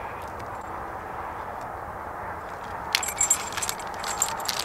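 Steady background noise, then from about three seconds in a run of small clinks and crinkling as a small plastic bag is handled.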